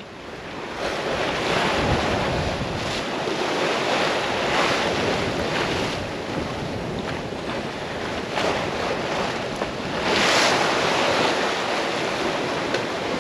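Wind buffeting the microphone and sea water rushing past a sailboat under way, in uneven surges, the loudest about ten seconds in.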